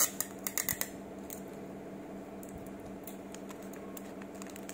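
Burger wrapping paper crinkling as it is folded and pressed around a sandwich by hand: a flurry of crinkles in the first second, then only a few faint ones. A steady low hum runs underneath.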